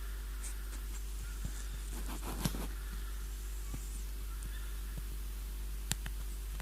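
A cat's single short snore, a pulsed nasal sound about two seconds in, over a steady low electrical hum; a sharp click near the end.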